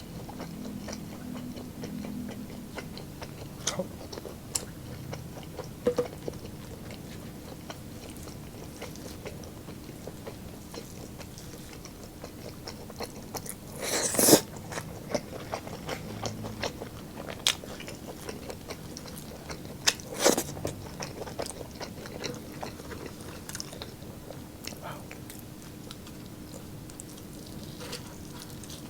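Close-miked chewing and biting of lechon pork ribs and chicken, wet mouth sounds and small clicks, with occasional crunches. Two loud, sharp crunches come about halfway through and again some six seconds later.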